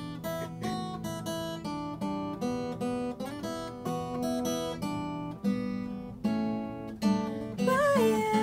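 Acoustic guitar strumming a steady run of chords, with no singing over it. Near the end a voice comes in with a held, gliding note.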